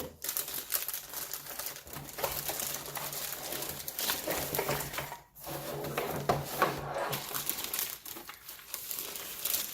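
Packaging crinkling and rustling in continuous handling as a keyboard is unpacked from its box, with many small crackles and clicks.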